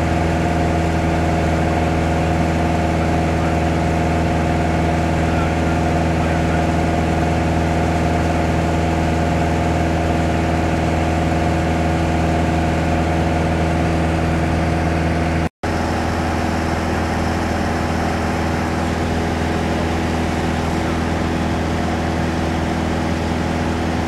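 Light touring aircraft's engine and propeller droning steadily inside the cabin in cruise flight, with a strong low hum. The drone cuts out for an instant about two-thirds of the way through, then carries on.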